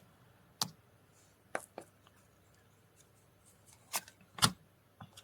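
Tarot cards being handled, giving a few short sharp snaps and taps, the loudest two near the end.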